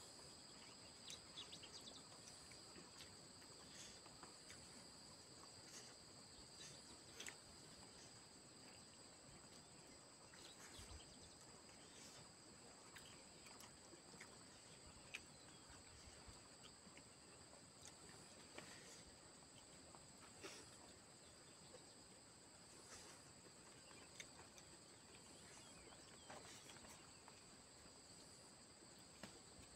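Near silence: a faint, steady, high insect drone, typical of crickets, with scattered soft ticks.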